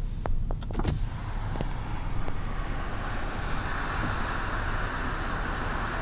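Car driving on a snowy road, heard from inside: a steady low engine and road rumble, a few sharp clicks in the first second, then a steady hiss that builds from about a second in.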